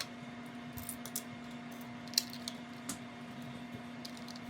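Scattered light clicks of plastic LEGO pieces being handled and pressed together, about six over a few seconds, over a steady low hum.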